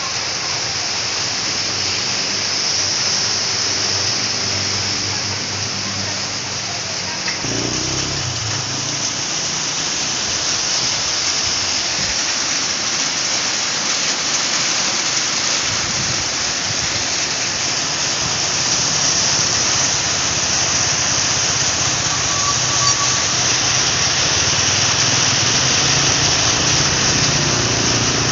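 Steady rain falling on surfaces: a dense, even hiss with no break.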